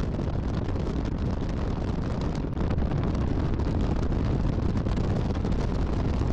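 Wind blowing across the microphone: a steady, low rumbling noise with no distinct events.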